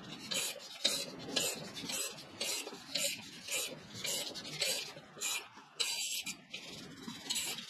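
A steel nut being turned down a threaded bar against washers by hand and spanner, making short rasping, clicking metal-on-metal sounds about twice a second. The nut is drawing a new wheel bearing into the motorcycle wheel hub through a homemade bearing puller.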